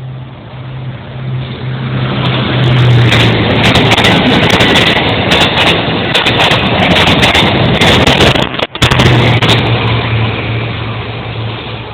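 A train passing close by at speed: a rushing rumble that builds over about three seconds, stays very loud for several seconds, then fades away. At its loudest it overloads the recording.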